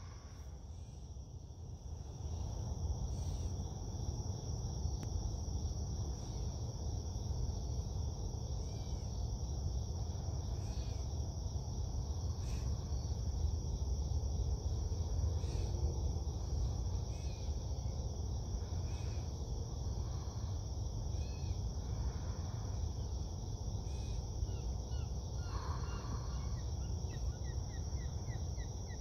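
Lakeside dawn ambience: a steady high insect trill over a low rumble, with scattered short bird chirps and a quick run of chirps near the end.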